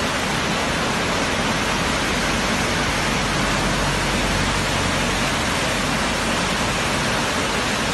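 Muddy floodwater rushing through a channel in a flash flood: a loud, steady, unbroken rush of water.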